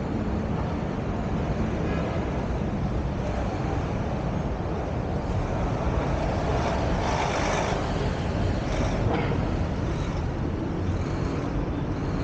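City street traffic and the car's own road noise picked up by a camera mounted on the car's roof while driving: a steady low rumble, with a louder hiss swelling up about seven seconds in and a shorter one about nine seconds in.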